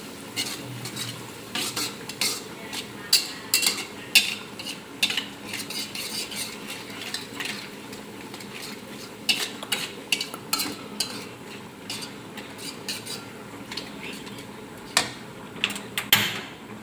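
Metal spatula scraping and knocking against a metal wok as chopped garlic is stir-fried in oil, with a steady sizzle under the irregular scrapes and clinks.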